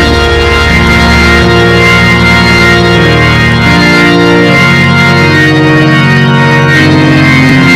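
Loud organ playing held chords, the chord changing every second or so.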